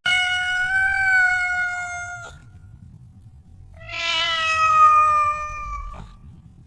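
A cat meowing twice: two long, drawn-out meows of about two seconds each, a short pause between them, each ending abruptly.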